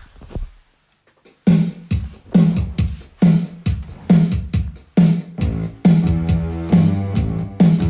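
Music with a steady beat, starting about a second and a half in, with a low bass line joining about halfway through.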